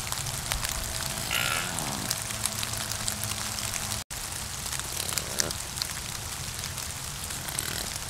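White-tailed deer giving a short, high bleat about one and a half seconds in, with a fainter short call later, over a steady hiss and low hum.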